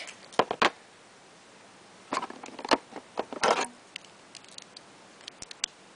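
Plastic Lego bricks clicking and scraping as a homemade Lego sliding door is worked by hand: scattered sharp clicks and a short scrape about three and a half seconds in.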